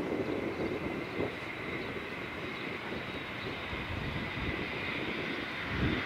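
Twin Pratt & Whitney Canada PW545C turbofans of a Cessna Citation XLS+ business jet running steadily: a continuous high whine over a low rumble.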